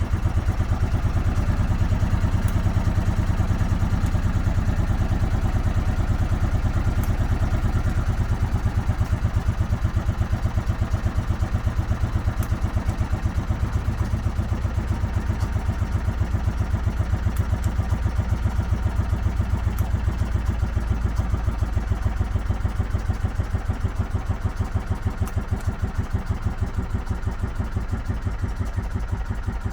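An engine running steadily at idle with an even, rapid pulse. Its low note shifts slightly about halfway through.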